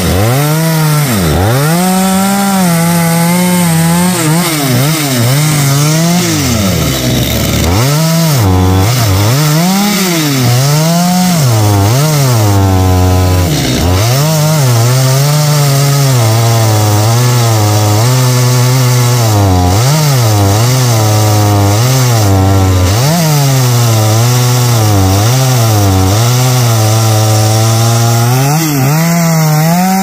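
Chainsaw cutting through xà cừ (African mahogany) wood. The engine runs continuously at high speed, its pitch sagging and climbing back over and over as the chain bogs down under load and recovers, in slower swings at first and quicker, smaller wobbles later.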